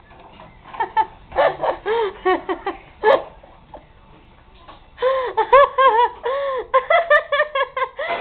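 A person laughing in rapid, high-pitched bursts: a run of short laughs in the first few seconds, a brief lull, then louder, longer laughing from about five seconds in.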